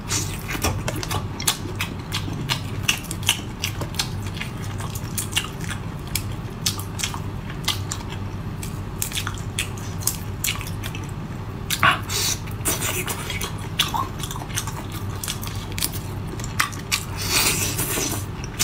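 Close-miked eating of marinated shrimp: wet, crackly chewing and biting through thin shrimp shells, with the sticky crackle of shells being pulled apart by hand, over a steady low hum.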